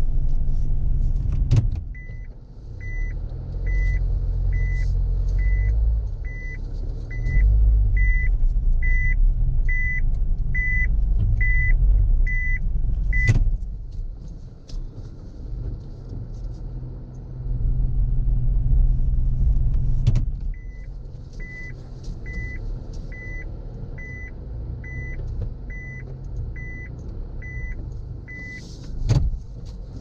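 A steady run of short, high electronic beeps at an even pace, stopping and later starting again for a second long run, over a loud low rumble. A few sharp knocks stand out briefly.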